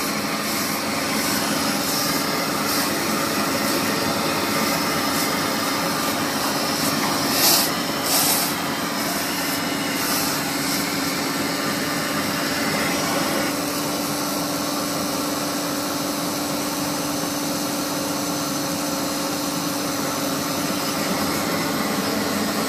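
Industrial machine running with a steady hum, with a few short hissing bursts about a third of the way in.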